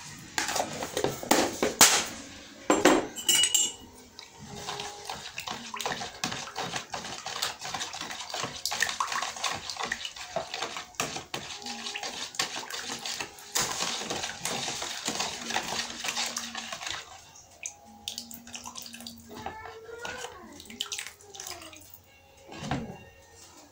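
A metal spoon scraping and stirring wet cake mixture in a plastic bowl, with sloshing and clicks against the plastic. A few loud knocks in the first couple of seconds as margarine is tapped out of its plastic tub, and the stirring grows sparser and quieter in the last several seconds.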